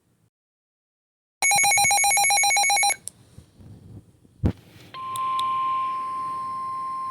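NOAA Weather Radio alert tones: about a second and a half in, a loud burst of buzzing digital SAME header data lasting about a second and a half, then a click, and from about five seconds the steady 1050 Hz warning alarm tone that announces a new alert.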